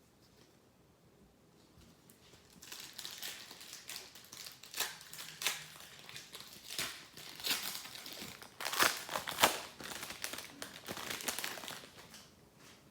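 Crinkling and crackling of a trading-card pack wrapper and cards being handled. It starts a couple of seconds in, with sharp crackles loudest a little past the middle.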